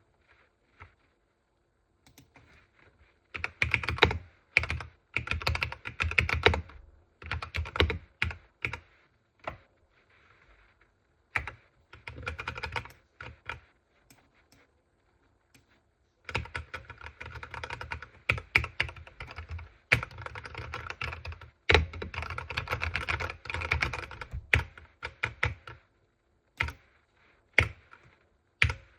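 Typing on a computer keyboard: runs of rapid key clicks in bursts of a few seconds with short pauses between, the longest unbroken run in the second half.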